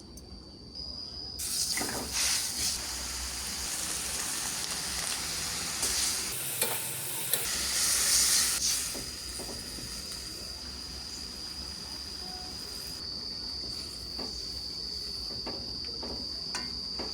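Tempe frying in hot oil, sizzling steadily, with a few sharp clicks of a utensil. The sizzle swells louder for a moment about eight seconds in, then settles.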